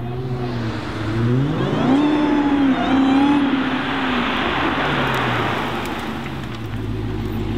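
Dodge Charger SRT Hellcat's supercharged 6.2-litre V8 accelerating hard through a Vicrez aftermarket exhaust: the revs climb steeply about a second in, hold with a brief dip, then fall away as the car passes. A faint high supercharger whine sits above the engine at the peak.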